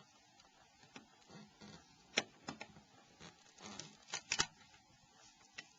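Faint, scattered small clicks and light scuffs of plastic phone parts being handled with a tool as the Nokia E70's battery deck is worked loose and lifted out. The sharpest clicks come about two seconds in and twice just after four seconds.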